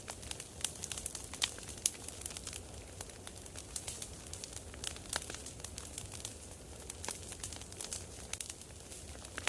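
Campfire crackling: many irregular sharp pops and snaps over a low steady rumble.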